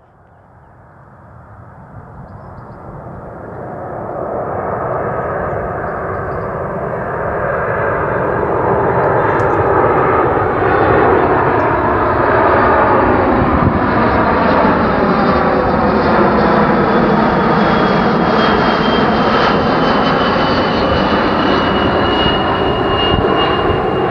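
Airbus A220-300 airliner on final approach, its Pratt & Whitney PW1500G geared turbofan engines running at approach power with gear down. The sound swells from faint to loud over the first few seconds as the jet comes in low, then holds a steady roar with a high whine that falls slowly in pitch near the end.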